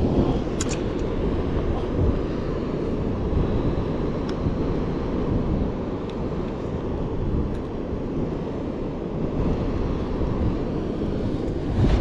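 Steady low rumble of wind buffeting the microphone, with a couple of faint clicks.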